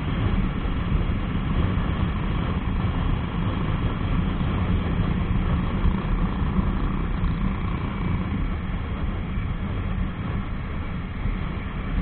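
Jawa 42 motorcycle riding along at a steady speed: a steady wind rumble on the action camera's microphone over the bike's engine.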